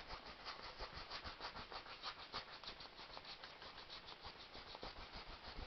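Paintbrush scrubbing acrylic paint onto a wet stretched canvas in quick back-and-forth strokes: a soft, fast, even scratching, several strokes a second.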